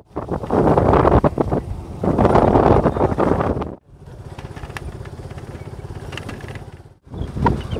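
Motorcycle engine running while riding, with loud rushing wind noise on the microphone for the first few seconds. The sound cuts off abruptly twice where clips are joined, each time resuming at a steadier, quieter run.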